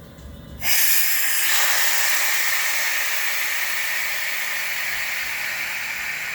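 A loud, steady hiss of pressurised gas escaping, which starts suddenly just under a second in and slowly eases off.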